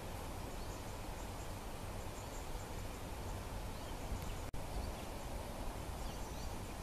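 Steady outdoor background noise with faint, short bird chirps scattered through it. The sound cuts out for an instant about four and a half seconds in.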